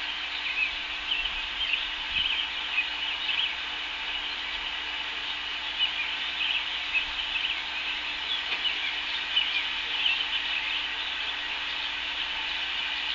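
Birds chirping in short irregular bursts over a steady high hiss and a faint low hum.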